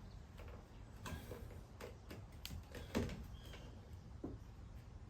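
Irregular light clicks and knocks of hands handling the rubber tailgate seal and tailgate during refitting, the loudest knock about three seconds in, over a low steady background rumble.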